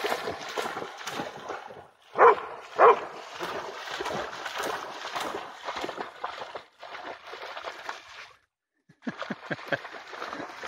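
Pharaoh Hound splashing as it runs and bounds through shallow water, with two short, loud calls about two seconds in. The sound cuts out for a moment near the end, followed by a few soft knocks.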